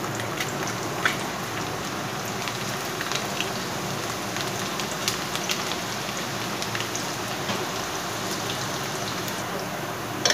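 Chopped garlic and whole dried red chillies frying in hot oil for a tadka: a steady sizzle with scattered small pops.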